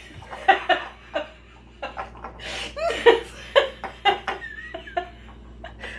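Two women laughing hard in short, broken bursts, without words.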